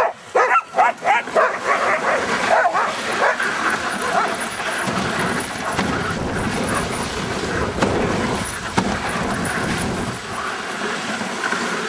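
Huskies in a sled team yipping and barking several times in quick succession during the first second and a half. A steady rushing noise of the sled running over the snow trail follows.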